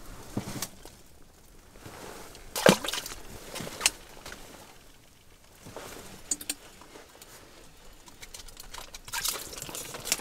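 Water splashing and dripping in an ice-fishing hole as small yellow perch are handled and caught. There is a sharp splash about two and a half seconds in and a run of splashing near the end as a perch is pulled up out of the hole.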